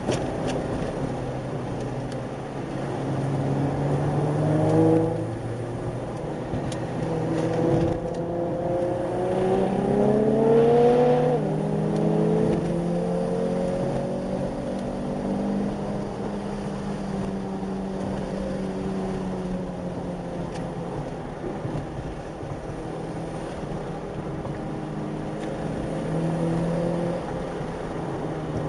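Car engine heard from inside a following car's cabin, pitch rising and falling through the bends: it climbs twice, about five seconds in and again around ten seconds in, drops away each time, and then holds steadier, over a constant rush of tyre and road noise.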